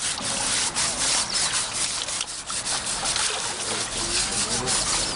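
Coconut husks scrubbed hard over a young elephant's wet skin: a dense, rasping rubbing made of many quick, irregular strokes.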